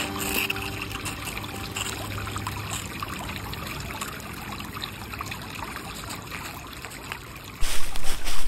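Shallow creek water trickling steadily over stones. About seven and a half seconds in, a sudden, much louder rough noise cuts in.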